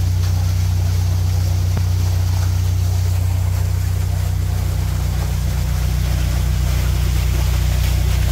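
A narrowboat's diesel engine running steadily, with an even low hum.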